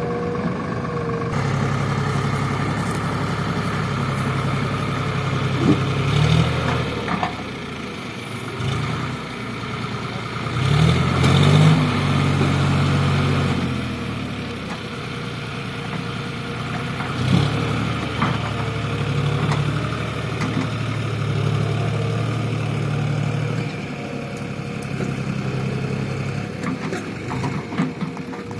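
JCB backhoe loader's diesel engine running steadily, rising in revs a few times as the machine works, most strongly about eleven seconds in.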